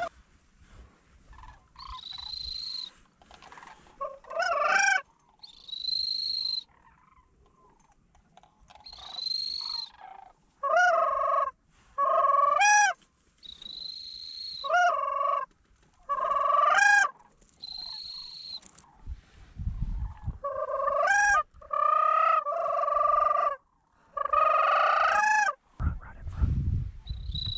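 Sandhill cranes calling: repeated bouts of rolling, rattling trumpet calls, interleaved with single high, drawn-out whistles about a second long.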